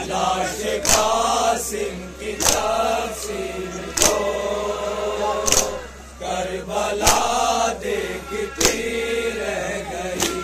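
Men chanting a noha, a Shia lament, together, with sharp rhythmic hand strikes on the chest (matam) about every one and a half seconds.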